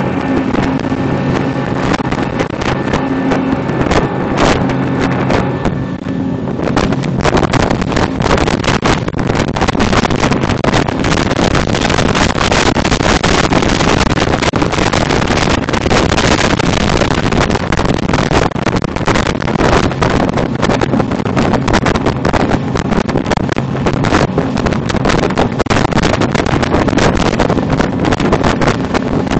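RIB's motor running steadily, with wind buffeting the phone's microphone. After about six seconds the wind noise grows and drowns out the engine's tone.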